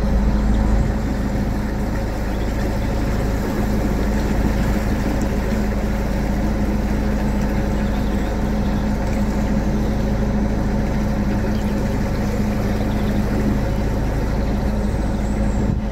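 Narrowboat engine running steadily while cruising, an even low hum that holds unchanged.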